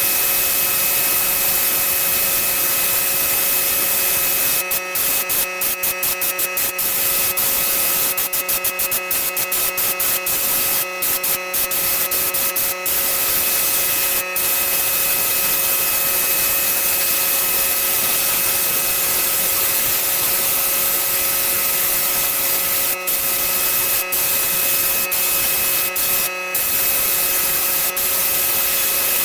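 Paint sprayer spraying paint onto a wooden fence panel: a loud, steady hiss over a constant motor hum. It cuts out briefly many times, in a quick run between about five and thirteen seconds in and again a few times near the end.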